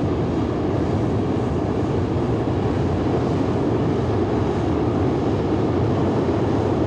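Space Shuttle Main Engine firing steadily during a static test: a continuous, even, deep rushing noise with no breaks.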